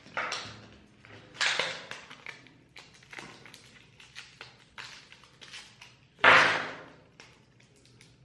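Plastic blister pack of a memory card crackling and creaking as it is bent and pried open by hand, in a string of short crackles with one loud crack about six seconds in.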